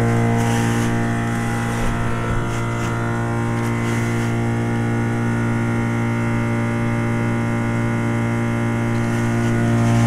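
Trane XL1800 heat pump outdoor unit running in its defrost cycle, its reciprocating compressor giving a steady hum with many overtones.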